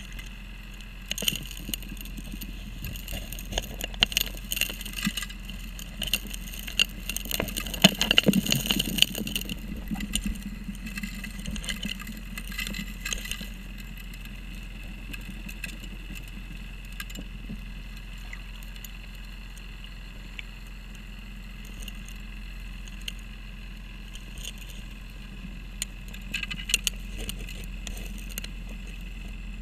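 Underwater sound of a 3-inch gold dredge's suction nozzle working a riverbed: gravel and small stones rattle and click as they are sucked in. The clatter is busiest in the first half and briefly again near the end, over a steady low hum.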